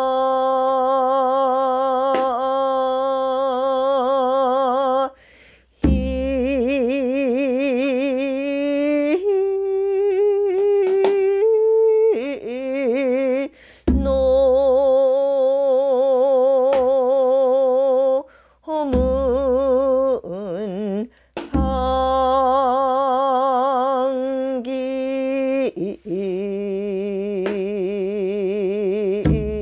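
A woman singing pyeong-sijo, traditional Korean sijo chant, solo: long drawn-out notes with a slow, wide wavering. The pitch steps up to a higher note around the middle and settles low near the end, with a few short breaks for breath.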